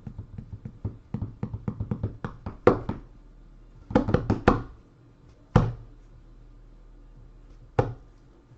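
A quick run of sharp clicks and light knocks, about four or five a second, for the first few seconds. Then a short cluster of louder knocks and a couple of single knocks further apart.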